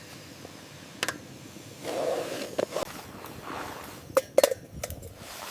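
Metal cookware being handled at a camp stove: a few sharp clinks and knocks, two close together about four seconds in, with a short rustling swell about two seconds in.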